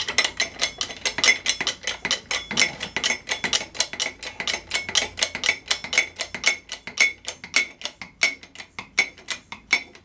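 Rapid light hammer taps on a steel rod, about five or six a second, each with a short metallic ring, stopping just before the end; the rod is being tapped straight over a steel block.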